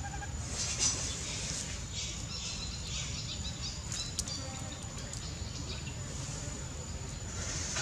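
Outdoor ambience: a thin, steady high-pitched insect drone over a low rumble, with soft rustling hisses now and then in the first few seconds.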